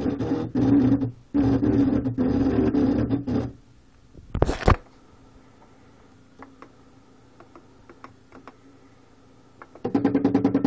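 3D printer stepper motors whining as the print head moves, a steady pitched hum that pulses rapidly with the back-and-forth moves. It stops after about three and a half seconds, leaving faint ticks and one short loud whir about a second later, and starts again near the end.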